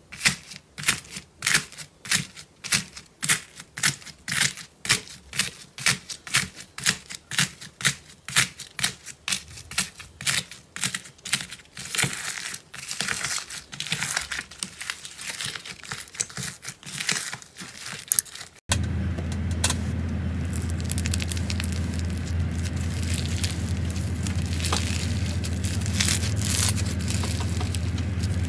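Foam-bead slime squeezed and pressed by hand, the beads crunching and crackling about twice a second. About 18 seconds in it changes suddenly to denser, fine crackling over a steady low hum.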